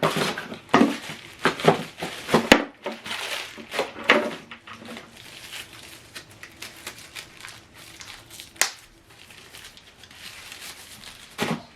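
Plastic packaging crinkling and rustling as it is handled, mostly in the first few seconds. Sharp clicks come about two and a half seconds in and again near nine seconds.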